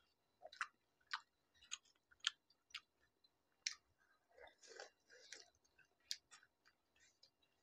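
Faint, scattered crunches and wet mouth clicks of people chewing crisp pani puri shells, a dozen or so short snaps spread out, with a softer run of chewing sounds about four and a half seconds in.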